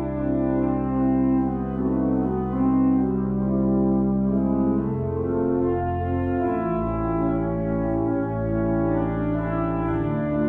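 Church pipe organ playing slow, sustained chords over a held bass note, the harmony shifting about five seconds in and again a little later: the opening prelude of the service.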